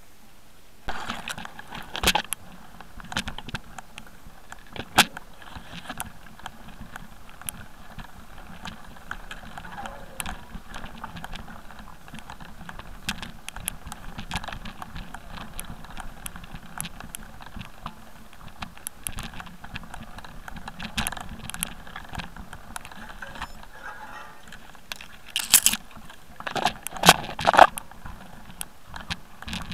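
A wheel rolling fast over a rough, stony, leaf-covered forest trail, heard from a camera mounted on the rider: steady crunching and rattling with many sharp knocks from jolts. The knocks are loudest about two and five seconds in and in a cluster near the end.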